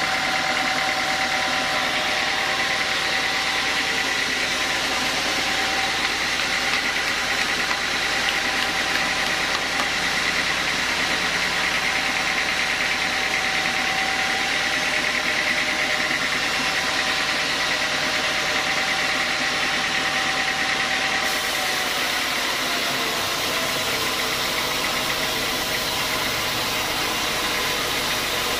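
Sawmill saws running steadily as timber is cut: a continuous machine drone with a steady whine. The sound changes abruptly about three quarters of the way through.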